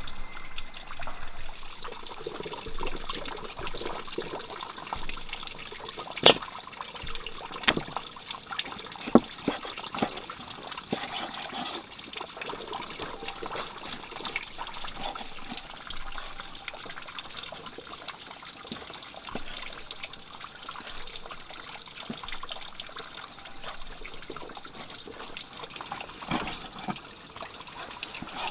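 Kitchen knife slicing raw pork on a wooden chopping board, with the wet sound of the blade through the meat and a few sharp knocks of the blade on the board, most of them a quarter to a third of the way in. Behind it runs a steady trickling sound.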